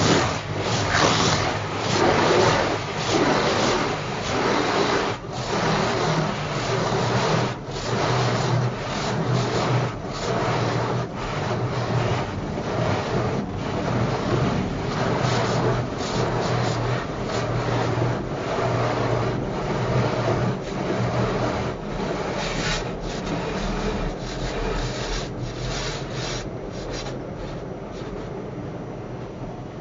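Automatic car wash brushes scrubbing across the windscreen and body amid spraying water, heard from inside the car: a dense rubbing and flapping noise that eases off over the last few seconds.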